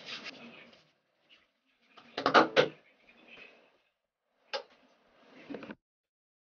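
Hands rubbing together as hand cream is worked in, with a few short, sharp knocks or slaps. The loudest cluster comes about two seconds in, with a single click a couple of seconds later.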